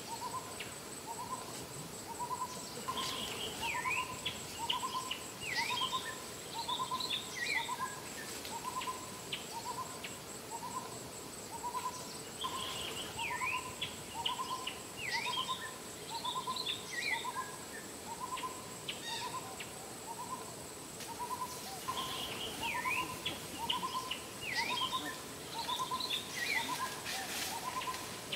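Owl hooting steadily in short, even notes a little more often than once a second. Bursts of other birds' quick chirps come back about every nine seconds, over a thin, steady high insect whine.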